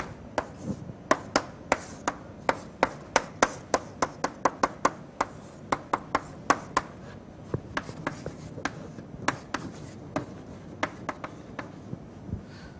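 Chalk on a blackboard as equations are written: an irregular run of sharp taps, several a second, with faint scratching between them, growing sparser near the end.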